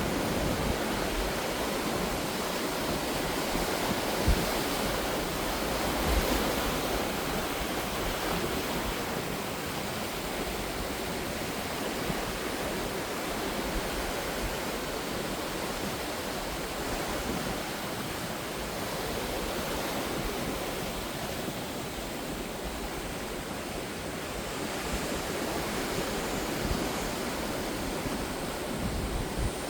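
Sea waves washing ashore: a steady rush of surf that swells slightly and eases as the waves come in.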